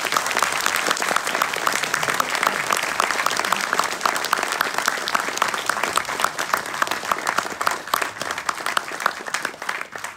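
Audience applauding, with hands clapping close by. The applause thins out near the end.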